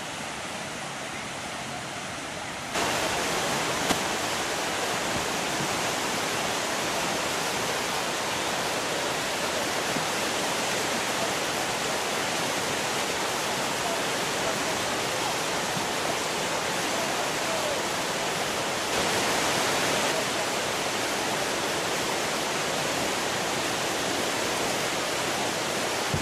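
Whitewater river rapids rushing steadily, jumping louder about three seconds in.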